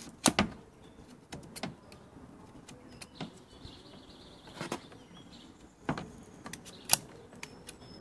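Plastic zip ties being fed through drilled holes in the solar panel's aluminum frame and pulled tight, with a short ratcheting buzz about halfway through. Sharp clicks and taps from handling the frame come about once a second.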